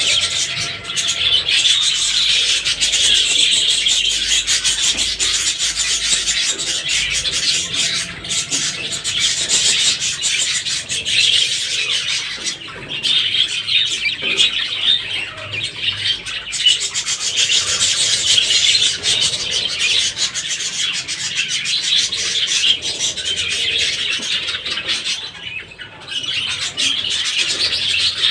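Flock of cage birds chattering and chirping without pause, a dense high-pitched chatter that dips briefly twice.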